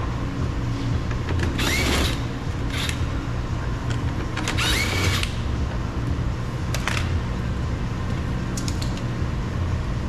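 Cordless drill/driver with a 7 mm socket backing out door-panel screws: two short runs, about two seconds and five seconds in, each whirring up in pitch and holding, with a few small clicks between, over a steady low hum.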